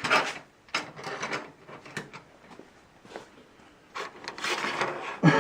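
Scraping and rubbing with scattered clicks and knocks as garage door parts and hardware are handled, quieter in the middle and louder near the end.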